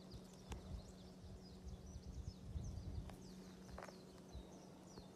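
Faint outdoor ambience: a steady low rumble with many short, high, falling chirps from small birds, several a second.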